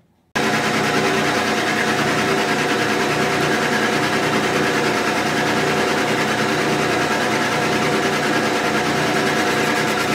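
Metal lathe running steadily with its four-jaw chuck spinning: a loud, even machine hum carrying several constant tones. It comes in suddenly just after the start.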